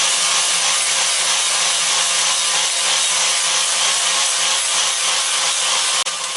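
Electric grinder polishing the steel of a hedge trimmer's cutter blade, a steady abrasive hiss over the hum of the grinder's motor. This surface polishing strips off plant resin and gunk. Near the end the disc comes off the metal and the noise drops, leaving the motor running.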